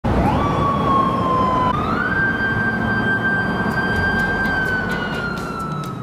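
Japanese police motorcycle's siren wailing loudly, signalling the car ahead to pull over: a tone that rises quickly and slowly sinks, then steps up higher about two seconds in and slowly sinks again, over steady road and engine noise.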